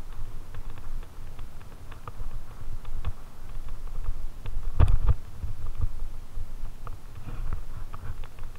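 A fat bike riding over a bumpy, leaf-covered dirt trail, heard through a mounted action camera: a steady low rumble and jolting with scattered light rattling clicks, and a harder thump about five seconds in.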